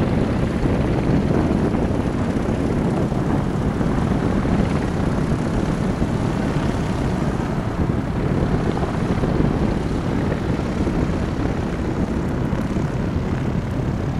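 Caro 1 homebuilt motorglider's engine and propeller running steadily as the plane rolls down the runway on its takeoff run.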